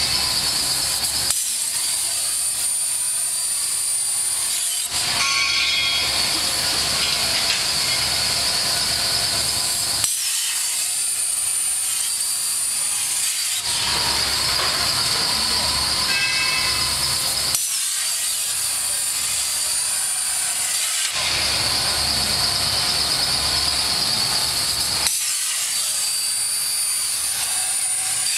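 CNC plasma torch cutting slots in square steel tube: a loud, steady hiss whose character changes every three to five seconds as the torch cuts each slot and pauses between them.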